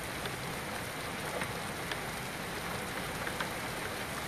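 Heavy rain pouring down, a steady dense hiss with a few sharp ticks of drops striking close by.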